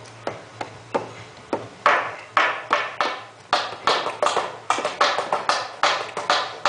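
Hands tapping out a syncopated percussion rhythm in imitation of a conga improvisation: a few scattered strikes at first, then a busier, louder pattern from about two seconds in.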